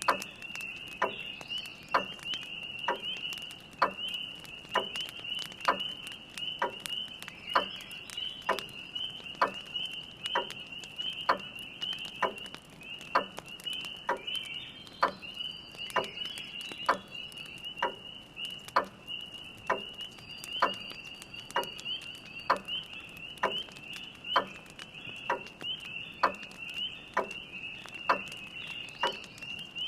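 A grandfather clock ticking steadily, about once a second, over a continuous chorus of spring peepers' high peeping calls.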